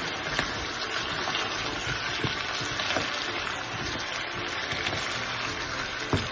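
Chicken pieces with onion and tomato sizzling steadily in their juices in a stainless steel pan while a spatula stirs them, with a few light scrapes and taps of the spatula.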